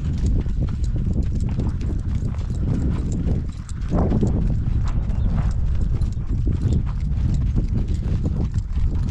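Horse's hooves clip-clopping on dirt at a trot, a quick run of sharp hoofbeats.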